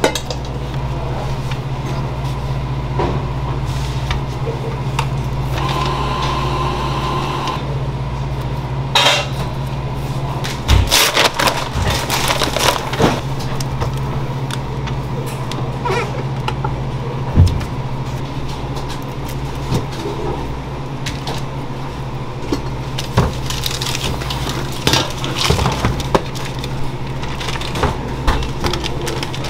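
Kitchen work with metal baking pans and utensils: scattered clinks, knocks and clatters over a steady low machine hum.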